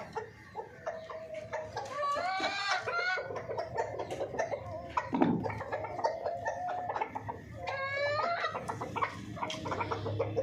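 Chickens clucking, with two longer calls that rise in pitch, one about two seconds in and another near eight seconds.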